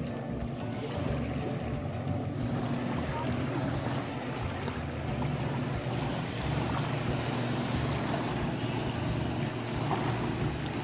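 A motorboat engine running steadily across open water, a low even drone, with small waves lapping at the shore.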